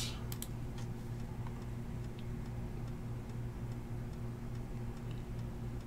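Steady low electrical hum, with a few faint, irregular light ticks scattered through it.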